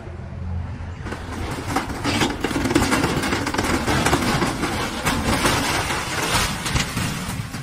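A metal-sided shed being pushed over a steep rock bank by an excavator, its sheet metal and framing crumpling and breaking apart. From about two seconds in there is a long run of metal clattering and crashing as it tumbles down the slope. The excavator's engine runs underneath.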